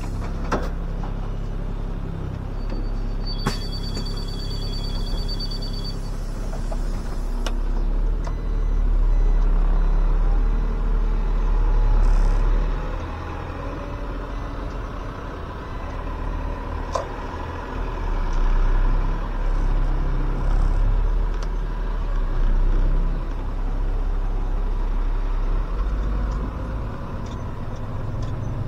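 SOR CN 10.5 bus: a high, rapidly pulsing door warning beeper sounds for about three seconds, and a sharp clunk follows. The bus's diesel engine then runs louder as it pulls away from the stop, rising twice over the rest.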